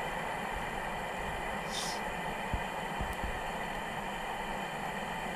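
Steady hiss of pancakes cooking in a skillet on a camp stove, with a few soft low knocks.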